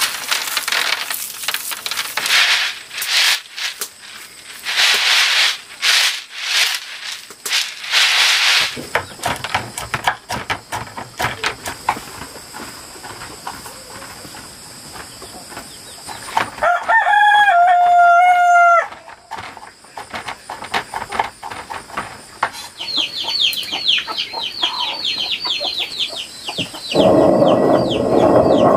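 A rooster crows once, a call of about two seconds a little past the middle that holds its note and then drops away. Before it come bursts of rustling, and a loud steady rushing noise starts near the end.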